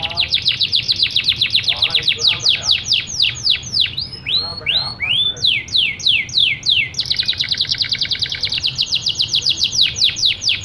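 Domestic canary in full, unbroken song: rapid rolling trills alternate with slower runs of downward-sweeping whistled notes, with a few arched notes about midway, then a fast trill again.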